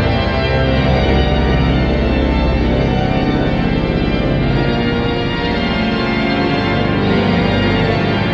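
Pipe organ playing sustained full chords over deep bass notes, in a vast stone church.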